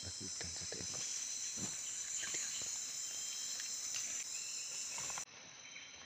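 Rainforest insects droning steadily in several high-pitched bands, with a few soft rustles and crackles of leaf litter in the first second or two. About five seconds in the sound cuts abruptly to a quieter forest ambience with faint short whistles.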